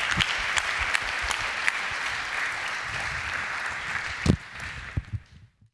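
Audience applauding, with one loud thump about four seconds in; the applause then fades out.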